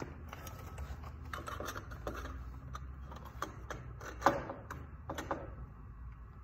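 Scattered light metallic clicks and scrapes as a silencer cone is handled at the outlet of a motorcycle muffler, with one sharper knock about four seconds in.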